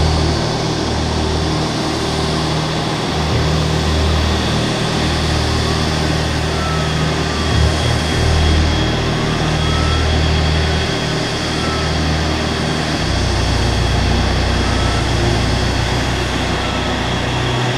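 Jet engines of a taxiing regional airliner running at low power: a steady rush with a faint high whine over a low, uneven rumble.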